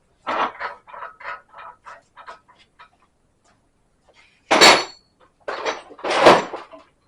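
Steel axle parts and tools being handled: a loud metal clang with a ringing tone about four and a half seconds in, and a harsher clatter about a second later. Before it comes a run of about ten short pitched chirps that fade out.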